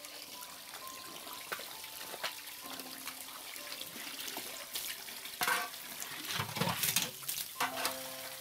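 Water running from a hose into a metal basin and splashing, with sharp clanks of steel bowls being handled, the loudest of them clustered about two thirds of the way in.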